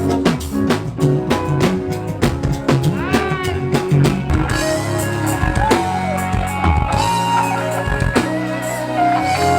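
Band music with drum kit and guitar. The drums play steadily for the first half, then drop back, leaving held notes.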